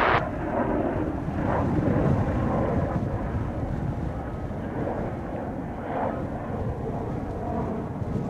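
Distant, steady rumble of the Airbus A220-300's Pratt & Whitney PW1500G turbofans running at low taxi power, heard from far across the airfield.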